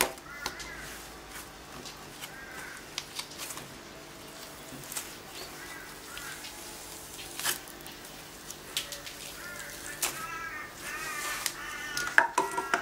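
Slime being squeezed, stretched and kneaded by hand, with sharp sticky clicks and pops now and then. Short pitched calls repeat in the background, most of them near the end.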